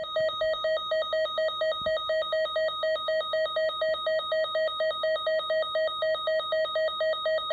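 Electronic emergency alert tone warbling rapidly between two pitches, about four alternations a second, held steady and loud.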